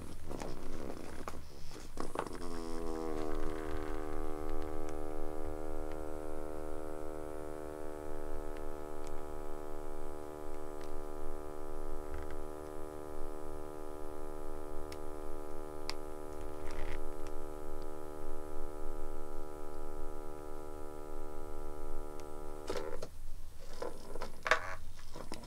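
A steady electrical hum with many even overtones. It starts about two seconds in with a brief settling in pitch, holds unchanged, and cuts off abruptly near the end, where a few light rustles and clicks follow.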